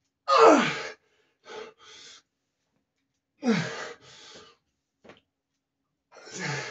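A lifter straining under a heavy barbell back squat: three loud, strained vocal grunts, each falling in pitch, about three seconds apart, with short sharp breaths between the reps.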